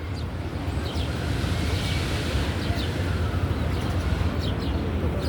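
Small birds giving short chirps now and then over a steady low rumble, like wind on the microphone.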